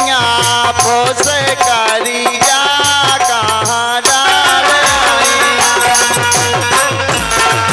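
Instrumental interlude of Indian folk music: a gliding melody line over a steady percussion beat with shaker-like rattles. About four seconds in the melody settles into held notes and a deeper drum comes in.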